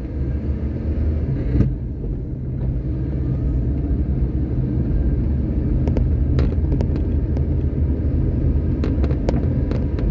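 A car driving slowly, heard from inside the cabin: a steady low rumble of engine and tyres, with a few light clicks scattered through it.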